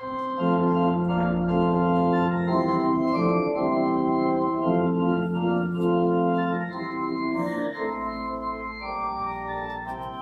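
Organ playing sustained chords that begin suddenly and change every second or so, a little softer in the last few seconds.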